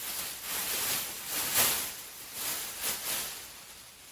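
A thin metal-coated Mylar sheet being shaken out and unfolded, crinkling in several rustling swells. The loudest comes about one and a half seconds in, and it dies down near the end.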